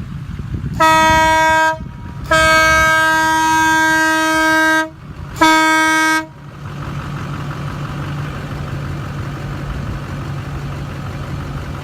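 Aftermarket train air horn sounding three loud blasts: a short one, a long one of about two and a half seconds, then another short one, each cutting in and off sharply. A vehicle engine idles underneath and carries on alone afterwards.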